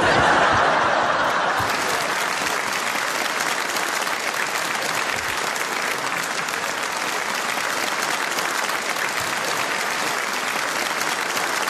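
Audience applause after a punchline, loudest at the start and then settling into steady clapping.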